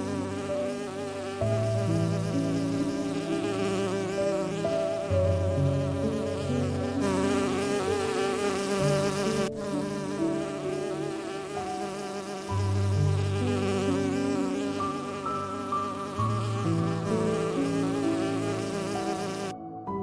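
Slow background music with sustained low notes that change every second or two, under a steady buzzing texture.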